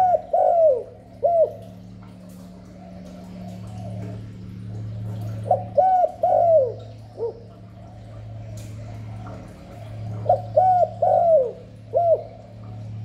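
Spotted dove cooing: three phrases of several short coo notes, each phrase ending in a falling note, about four to five seconds apart, over a steady low hum.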